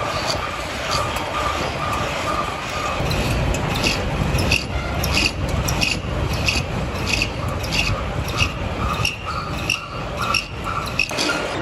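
Metalworking on a crankshaft in a workshop. Steady machine noise runs throughout, and from about four seconds in rasping, scraping strokes repeat about two or three times a second.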